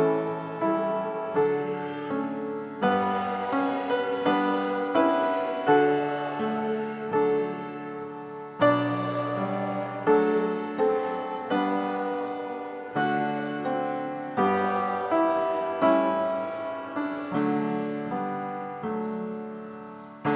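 Solo piano playing slow music of chords and melody, each struck note fading away before the next.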